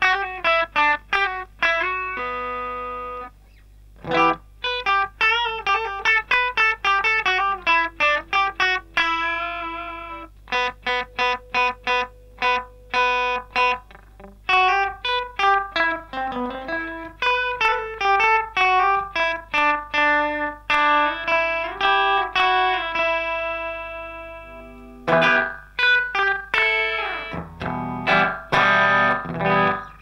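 Electric guitar played through analog bucket-brigade delay pedals as a side-by-side test. First a Boss DM2 clone (two MN3008 chips) set to a short slapback echo, then a vintage Ibanez AD9 (MN3205 chip) set to slapback with long repeats. Picked notes and chords trail short echoes that repeat and fade, with denser strummed chords near the end.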